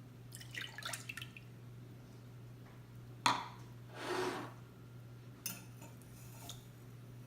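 Milk and sugar going into a mixing bowl: a few light clinks near the start, then a knock about three seconds in followed by a short pour of milk, and another single clink later.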